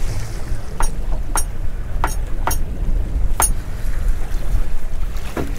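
Steady low rumble of wind and choppy sea around a small open boat, with about six sharp clicks at irregular intervals.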